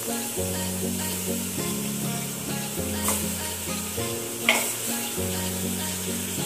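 Raw mutton pieces sizzling as they are dropped into hot oil and fried ginger-garlic paste in a pressure cooker, over background music with slowly changing notes. A single sharp click about four and a half seconds in.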